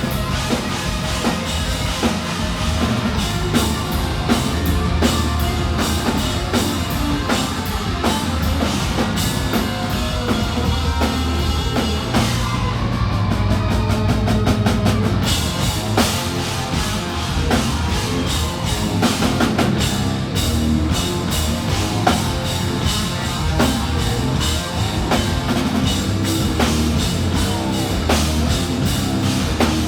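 Hard rock band playing live and loud, with the drum kit to the fore.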